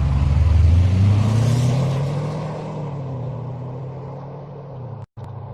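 Fast car's engine accelerating hard, its pitch climbing over the first couple of seconds, then fading gradually. It cuts out for an instant near the end and picks up again at a steadier, quieter level.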